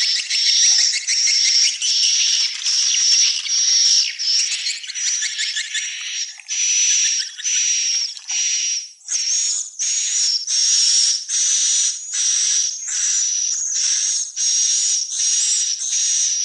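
Swiftlet calls: a dense, high twittering chatter with a steady chirping tone on top, which about halfway through breaks into separate buzzy chirps at about two a second.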